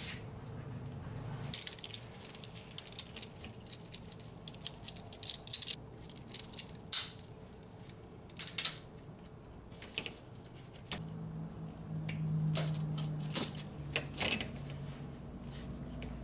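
Irregular sharp metallic clicks and rattles of hand tools being handled against metal, thickest in the first third. A low steady hum comes in about two-thirds of the way through.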